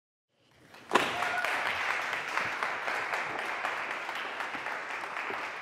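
Audience applauding. It fades in, jumps up sharply about a second in, then holds steady and slowly eases off.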